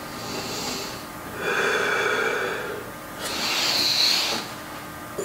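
A man breathing audibly and deeply while holding a floor stretch: two long breaths, the second one louder and hissier.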